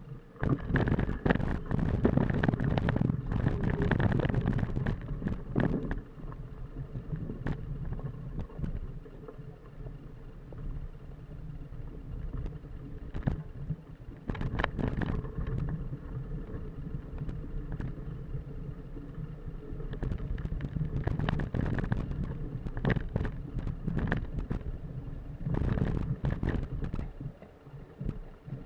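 A mountain bike rolling fast over a rooty dirt trail, heard close to the front wheel: a steady tyre rumble with a rattling clatter and knocks from roots and bumps. It gets louder in several rough stretches.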